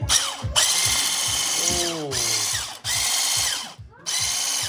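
Hand-held electric whisk running in a stainless steel bowl of cookie dough, its motor whining in bursts that stop and start again three times, with the whisk knocking against the bowl.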